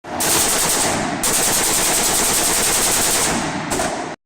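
Rapid automatic gunfire, a continuous string of shots lasting about four seconds that starts and cuts off abruptly.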